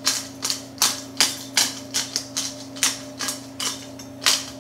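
Hand-twisted pepper grinder cracking peppercorns: a quick, even run of gritty clicks at about three a second, over a steady low hum.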